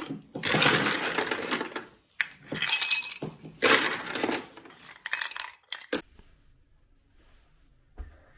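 Hard objects clinking and clattering in three noisy spells, then it goes quiet about six seconds in.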